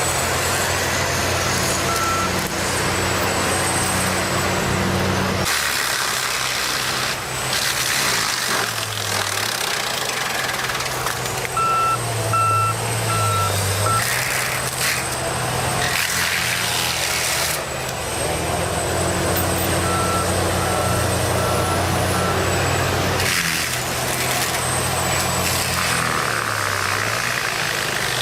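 Heavy vehicle engine running steadily, with a reversing alarm beeping in short runs of four beeps, once about halfway through and again a few seconds later. The engine sound changes abruptly several times.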